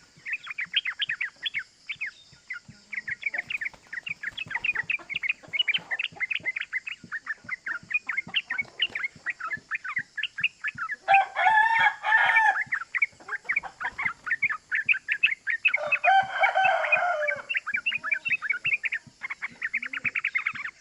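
Yellow-vented bulbul (trucukan) singing a fast, unbroken run of short chattering notes, the rapid 'ropel' song. Twice, about eleven and sixteen seconds in, a louder, lower call from another bird lasting about a second and a half cuts in over it.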